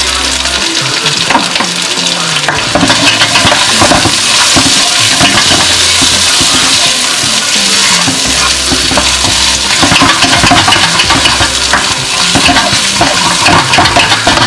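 Fried tofu cubes, shallots and garlic sizzling in oil in a nonstick wok, with a spatula repeatedly scraping and tossing them around the pan.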